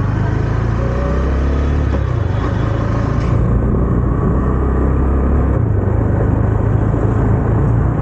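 KTM motorcycle engine running while riding slowly over a brick-paved road, with wind and road noise. The low engine note shifts about two seconds in and again near the six-second mark.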